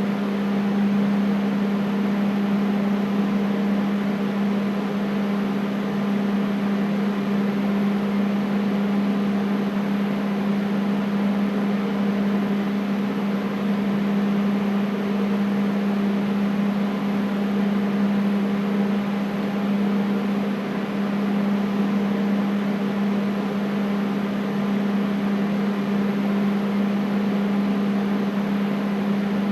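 Air conditioner running steadily: a constant low hum over an even rush of air.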